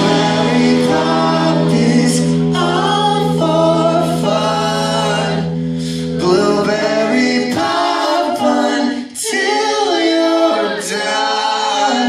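A rock band's full sound drops to a held chord under several voices singing together in harmony. About seven and a half seconds in, the chord fades and the voices carry on unaccompanied, closing the song.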